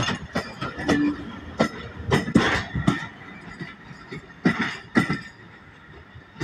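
Railway passenger coaches rolling away over jointed track: irregular metallic clacks of the wheels over rail joints above a low rumble, fading as the last coach draws off.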